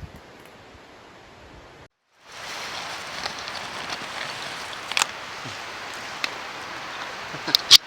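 Even, steady outdoor rushing noise that cuts out about two seconds in and comes back louder, with a few sharp clicks and knocks near the end.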